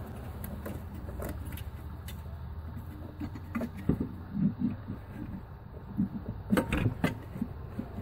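Metal clinks and knocks as a replacement alternator is worked onto its mounting bracket and the mounting bolt is pushed through, a cluster of sharp knocks in the second half, over a steady low hum.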